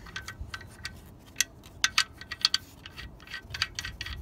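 Irregular light metallic clicks and clinks as the oil drain plug and its washer are turned back into a Pontiac G6's oil pan by hand.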